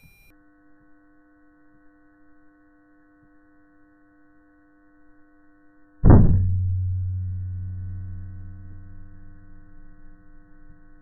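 A faint steady hum-like tone, then about six seconds in a sudden deep boom that rings and fades slowly over several seconds.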